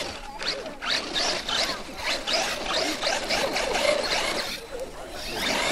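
Radio-controlled monster truck's tyres spinning and scrabbling in loose dirt and gravel as it claws up a slope, a quick irregular run of rasping scrapes.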